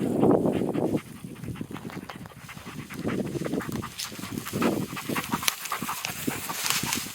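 A German wirehaired pointer (drahthaar) panting hard, loudest in the first second.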